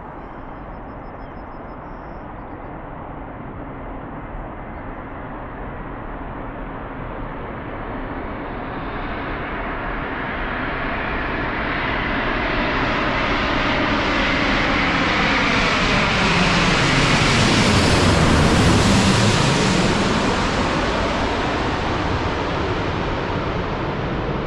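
Jet airliner flying low overhead: its engine noise builds steadily, peaks about eighteen seconds in with a sweeping change in tone as it passes, then eases off.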